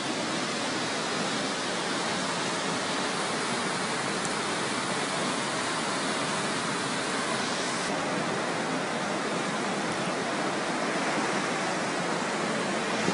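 Flash floodwater rushing past in a steady, unbroken wash of noise.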